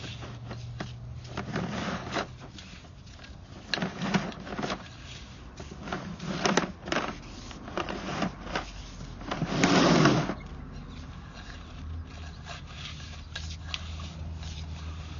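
Sewer inspection camera's push cable being fed into the line: irregular scrapes and knocks, with a longer, louder scraping rush about ten seconds in, over a steady low hum.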